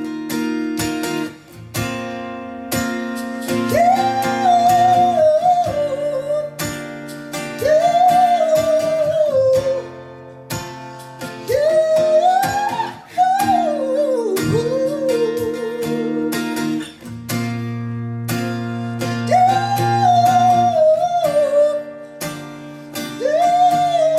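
Background music: acoustic guitar with a wordless sung melody that rises and falls in phrases a few seconds long.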